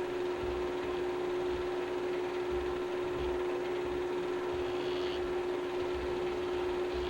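Steady electrical hum with an even hiss and faint low rumbles, the noise floor of a silent 8mm film transfer with no recorded sound.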